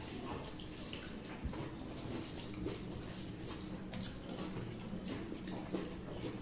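Two people eating rice and curry by hand: wet chewing and lip-smacking, with the squelch of fingers mixing rice in metal plates, as many short wet clicks throughout. A steady low hum lies underneath.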